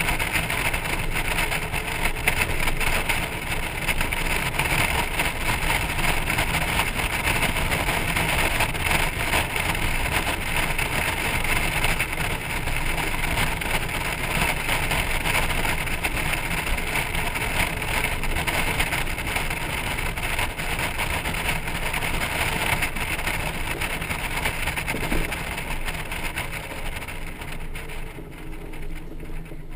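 Steady rush of wind and road noise from a Honda Gold Wing motorcycle and its towed trailer at road speed, heard from the trailer. It drops off near the end as they slow.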